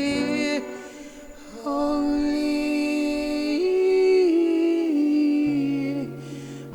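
Slow worship music: a voice sings long, held, wordless notes that step up and down in pitch, over a steady low sustained chord.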